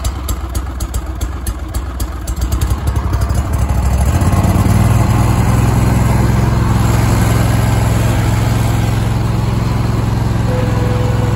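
Bad Boy Avenger zero-turn mower engine running just after a cold start on choke. It runs unevenly at first, then steps up to a higher, steady speed about four and a half seconds in.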